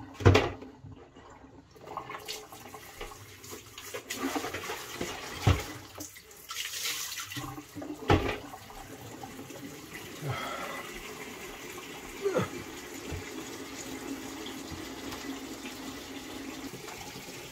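Kitchen tap running into a plastic bucket in the sink, filling it, with a few sharp knocks as the bucket and its insert are handled in the first half.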